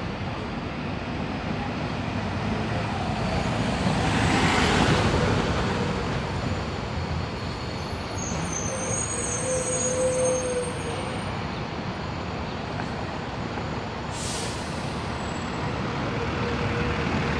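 City buses running and manoeuvring through a bus terminal, engine and tyre noise swelling loudest as one passes about five seconds in. A faint high squeal follows a few seconds later, and a short hiss of air brakes comes near the end.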